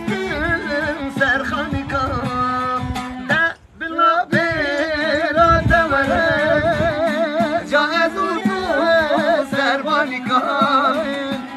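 Kurdish folk music led by a bağlama (long-necked saz): a wavering, heavily ornamented melody over a steady low drone, with a brief break about three and a half seconds in.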